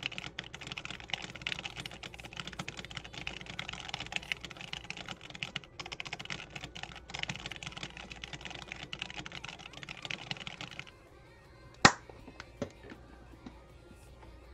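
Very fast touch-typing on a Das Keyboard X50Q mechanical keyboard with Gamma Zulu switches: a dense, steady clatter of keystrokes that stops about eleven seconds in. About a second later comes one sharp click, the loudest sound here, followed by a couple of faint ones.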